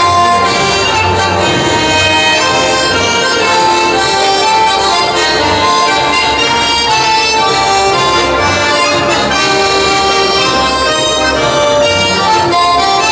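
A live band plays a traditional Italian folk dance tune, led by an accordion over a double bass with a steady beat.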